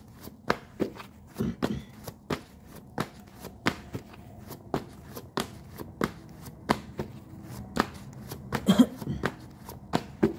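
A deck of tarot cards being shuffled by hand, heard as a steady run of sharp, irregular card snaps and taps, about two or three a second, with a louder clatter near the end.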